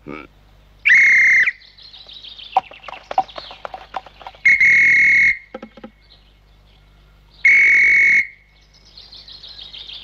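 Three long, shrill blasts on a whistle, each a steady single tone just under a second long, about three seconds apart, with fainter chirping between them.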